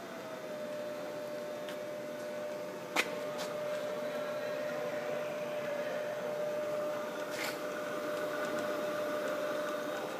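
Southwestern Industries ProtoTrak K3 knee mill's 3 hp variable-speed head running its spindle at the low end of low gear: a steady, quiet whine at one pitch, with a single sharp click about three seconds in.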